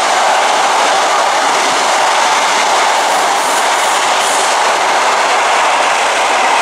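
A passenger train's coaches rushing past close by at speed, a loud, steady noise of wheels on rails.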